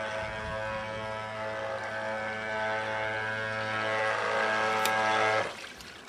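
Battery-electric drive of a remote-control wooden model speedboat running at speed: a steady, unchanging whine that cuts off suddenly about five and a half seconds in.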